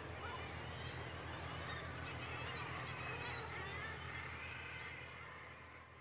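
Seabird breeding colony of common guillemots: many birds calling at once in a dense, overlapping chorus over a steady low rumble, fading out near the end.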